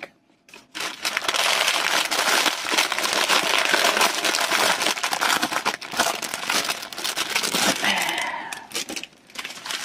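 Clear plastic bag full of small baggies of diamond-painting drills being handled, with continuous crinkling and rustling of plastic. It starts after a brief silence and eases off near the end.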